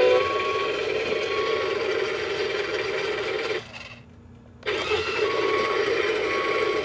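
Electronic sound effects from the Maxx Action 2-in-1 toy dump truck's built-in speaker: a steady engine-rumble sound with short beeps about once a second. The sound cuts out for about a second just past the middle, then starts again.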